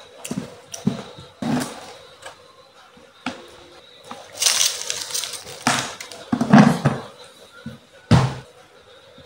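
A large plastic food container and its snap-on lid being handled: irregular knocks and clatters as it is picked up, opened and set down, with a scraping rustle about halfway through as rice is taken out.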